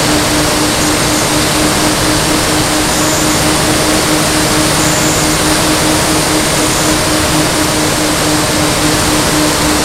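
Propeller aircraft engine running at a steady speed, heard from on board: a constant droning hum under a heavy, even rush of air noise.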